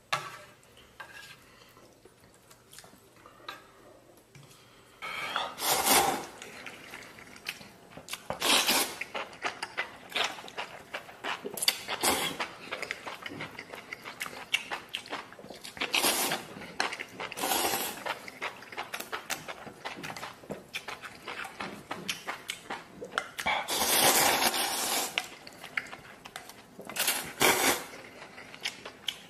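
A man eating a bowl of instant noodles: noodles slurped in loud noisy bursts every few seconds, with chewing and chopsticks clicking against the bowl in between.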